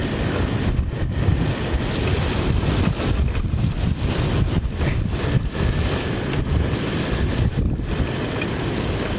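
Strong, gusty thunderstorm outflow wind buffeting the microphone: a rumbling, fluctuating rush with a steady hiss above it.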